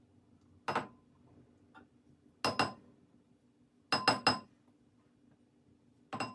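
Kitchen utensil knocked against the rim of a bowl, sharp ringing clinks in groups: once, twice, three times quickly, then once more, knocking off strained lemon curd.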